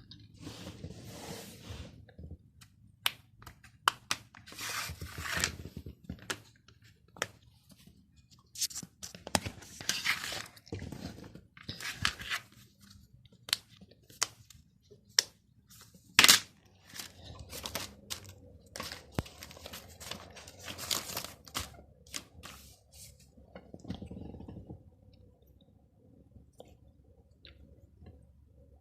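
A sponge rubbed and squeezed on a silicone pop-it fidget toy: repeated crunchy scratching strokes broken by sharp clicks, dying away to faint handling sounds near the end.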